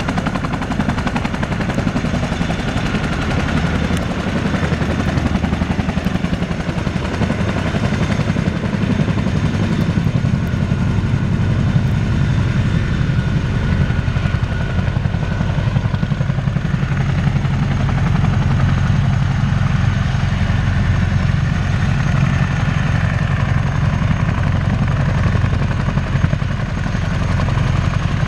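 Boeing CH-47F Chinook tandem-rotor helicopter running on the ground as it taxis: its rotor blades beat in a rapid, steady chop under the even whine of its two turboshaft engines.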